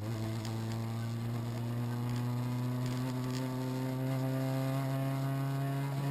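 Renault Clio RS rally car's four-cylinder engine, heard from inside the cabin, pulling steadily in gear with its pitch rising slowly as the car accelerates.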